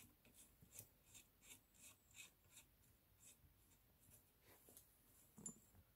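Faint, quick scratchy ticks, about two or three a second: small Allen head screws being turned by hand into a handlebar clamp. A soft knock comes near the end.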